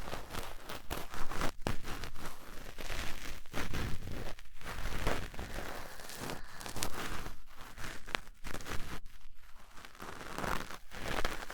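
Cotton swab rubbing and scraping inside the ear of a 3Dio binaural microphone: close, scratchy rustling in uneven strokes with brief pauses.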